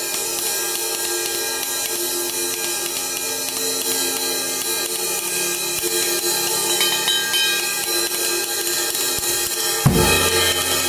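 Drumstick playing on an 18-inch medium-thin Zildjian K dark crash fitted with two rivets, the cymbal ringing on in a continuous wash under the stick strokes. A single low drum hit comes near the end.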